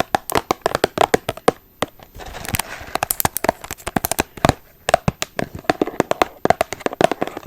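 A box of Ferrero Rocher chocolates being handled close to the microphone: a dense, irregular run of sharp crackling clicks and taps on its packaging.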